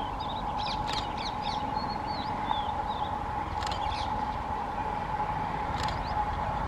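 Crows cawing about three times and small birds chirping over the low, steady rumble of a diesel locomotive approaching slowly, with a steady droning tone underneath.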